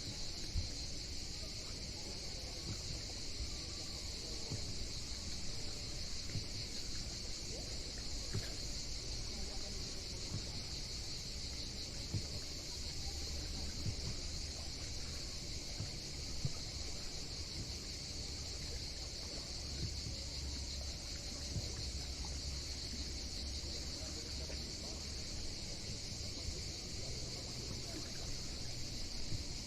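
A steady, unbroken high-pitched insect chorus in summer heat, with a low, uneven rumble underneath.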